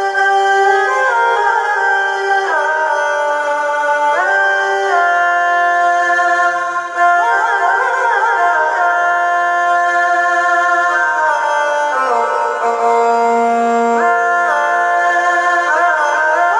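Roland Lucina AX-09 keytar playing a single-line melody on an Indian-style lead voice: held notes joined by pitch slides, with a lower held note about three quarters of the way through.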